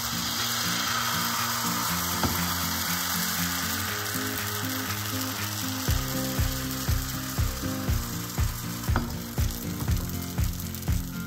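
Crêpe batter sizzling steadily as it fries in a hot pan. Background music plays underneath, and a steady beat of about two thumps a second comes in about halfway through.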